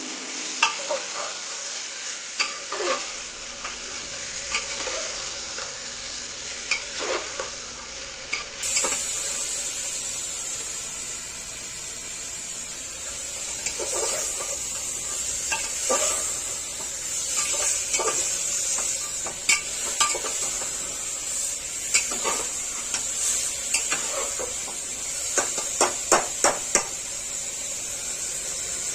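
Chicken curry sizzling in a frying pan while a utensil stirs it, with irregular sharp clinks and scrapes against the pan over a steady frying hiss.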